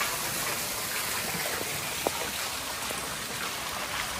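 Steady wash of water on wet pavement, with scattered drips and one sharper tap about two seconds in.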